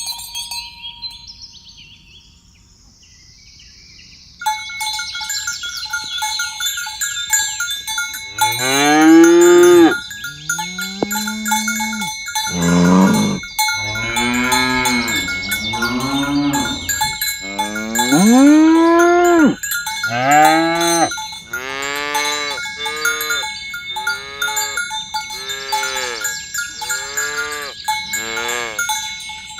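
Cattle mooing over and over from about eight seconds in: long calls at first, then shorter calls in quick succession. Cowbells ring steadily underneath from about four seconds in.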